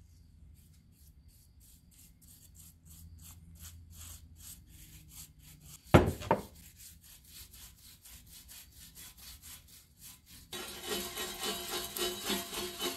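A paintbrush stroking paint stripper onto a diamond-plate aluminum step in a quick, even rhythm, with one loud knock about six seconds in. Near the end a small wire brush takes over, scrubbing harder and louder at the aluminum paint, which smears rather than lifting.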